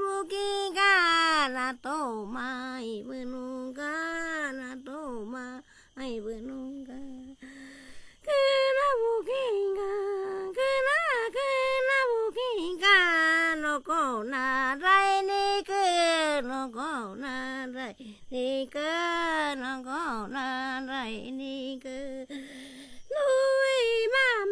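A woman's voice singing a melody in short phrases with brief pauses, the pitch sliding and wavering between notes, with a quieter stretch about a quarter of the way in.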